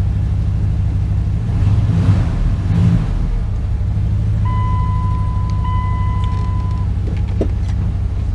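Dodge Ram pickup's engine idling with a steady low rumble, with a louder rough stretch about two seconds in. Partway through, a steady electronic tone sounds for about two and a half seconds.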